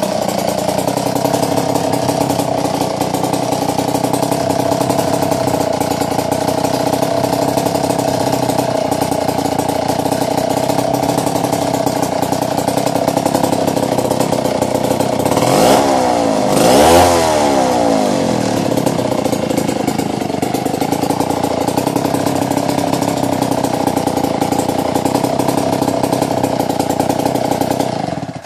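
Vintage McCulloch 47A two-stroke chainsaw engine running at idle, revved briefly twice about halfway through, then cut off just before the end.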